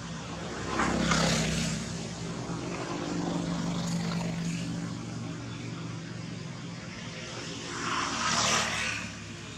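A motor engine running steadily, with two louder rushing swells, one about a second in and one near the end.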